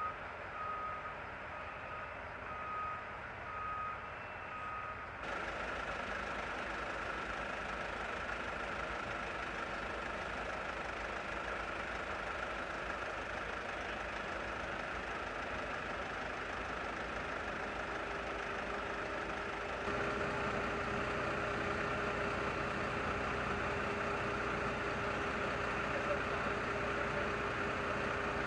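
A heavy vehicle's reversing beeper sounding about once a second over an engine. About five seconds in the beeping stops and a steady truck engine running takes over, growing a little louder about twenty seconds in.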